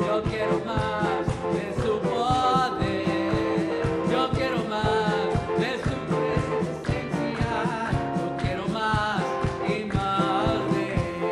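Live praise-band music: electric guitar and keyboard over a steady beat, with a voice singing the melody.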